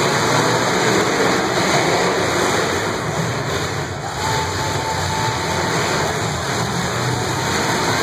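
Engines of several demolition derby cars running in the arena, blended with the steady noise of a large grandstand crowd.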